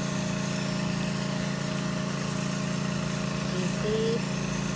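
A loud, steady machine drone, like a motor running without a break, with a short hum of a voice about four seconds in.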